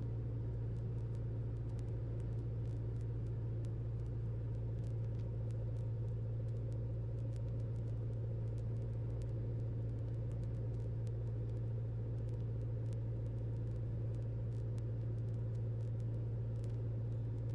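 Cessna 172's engine and propeller droning steadily in the cabin, a constant low hum with faint scattered clicks.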